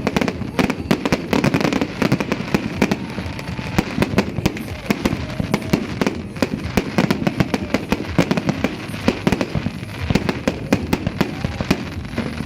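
Fireworks and firecrackers going off together, a dense unbroken run of sharp bangs, many a second.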